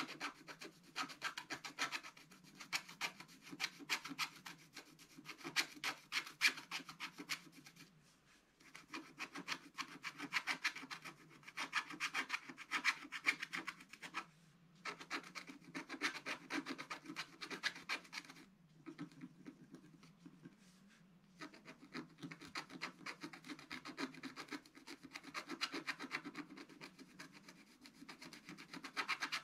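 Wooden stylus scratching quick, short strokes into the black coating of a scratch-art paper sheet, a rapid dry scraping that comes in bouts with a few brief pauses.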